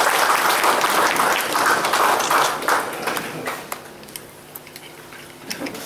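Audience applauding, the clapping dying away about three and a half seconds in and leaving a few scattered claps.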